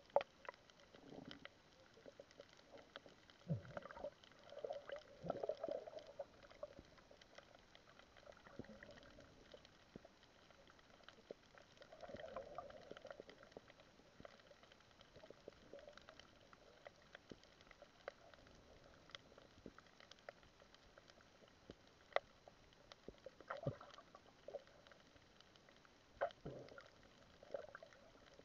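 Faint, muffled underwater sound picked up by a submerged camera: soft gurgling swells now and then, with a few sharp clicks.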